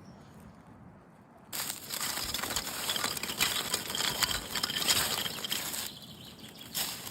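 Packaging being crinkled and handled: a dense, crackly rustle that starts about a second and a half in and eases off near the end.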